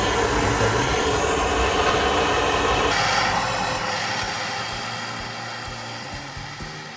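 A steady rushing noise from a workshop tool, loud at first, then fading away gradually from about three seconds in.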